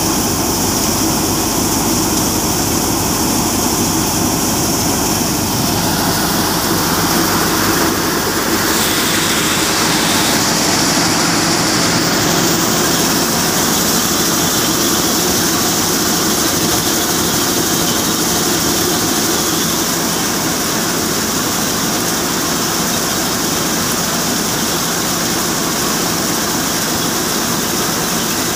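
Mayur thresher running steadily while threshing moong (mung bean) plants: a loud, continuous machine drone with the hiss of straw and grain passing through it.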